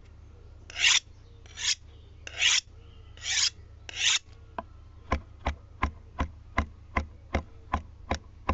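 Five rasping, filing-like strokes, each swelling and then cutting off, followed by about ten sharp, evenly spaced clicks at roughly three a second, over a steady low hum.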